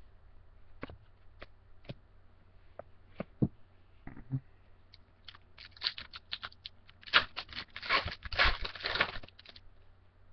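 A few light taps as cards are handled, then about halfway in a run of crinkling and tearing as a foil trading-card pack wrapper is opened, loudest near the end.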